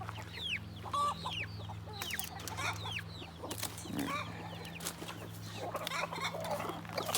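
Chickens clucking and calling, with many short high calls that fall in pitch, over a steady low hum.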